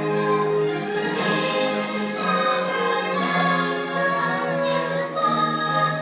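Music with a choir singing long held chords over orchestral backing.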